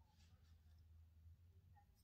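Near silence: room tone with a low steady hum and a faint rustle or two.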